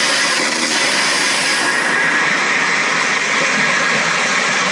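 Ryobi 18-volt cordless hammer drill turning an ice auger bit, boring a hole through lake ice: a loud, steady run of the auger cutting ice under the drill's power.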